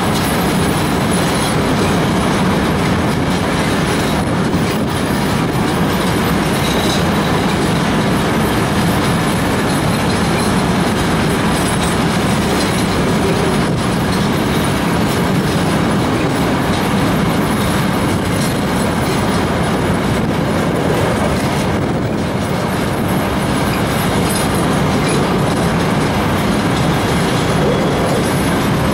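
Empty rock hopper cars of a long freight train rolling past at close range: a steady, loud rumble and clatter of steel wheels on rail.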